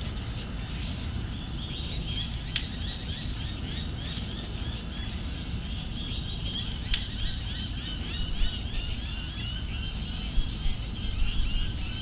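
Small birds chirping, rapid high calls repeating many times a second that thicken after a couple of seconds, over a steady low rumble. Two sharp clicks come partway through.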